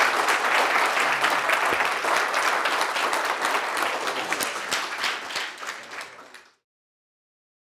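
Seminar audience applauding, a dense patter of many hands clapping that slowly dies down and then cuts off abruptly near the end.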